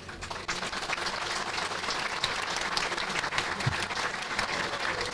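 Crowd applauding: dense, steady clapping that starts about half a second in.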